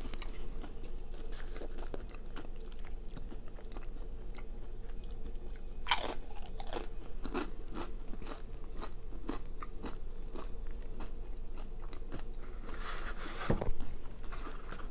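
Mouth sounds of someone chewing soggy nacho chips, a steady run of wet smacks and soft crunches, with a louder bite about six seconds in and again near the end.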